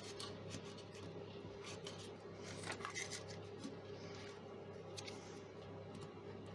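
Light clicks and rubbing of plastic as a small Bluetooth speaker's plastic casing is handled and fitted back together, over a steady low hum.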